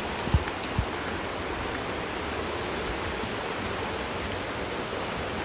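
Waterfall gushing: a steady, even rush of falling water. Two short low thumps sound in the first second.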